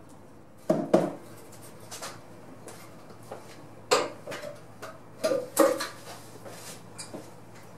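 Sharp metallic clanks and knocks with a short ring as a sand-casting mould is knocked out into a galvanised steel wheelbarrow. A pair comes about a second in, a hard single one comes midway and another pair follows soon after, with lighter taps between.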